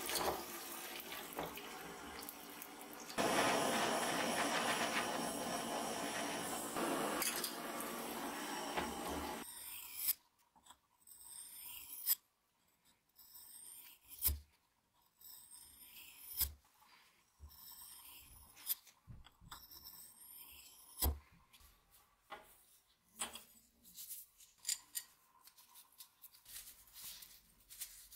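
A hot steel pruning-shear blade is quenched in a can of liquid and sizzles steadily for about nine seconds, hardening the steel. Then comes a series of separate rasping strokes, about every two seconds, as the blade is drawn across a sharpening stone, with a few sharp knocks. Near the end there are quick small metal clicks as the blades are handled.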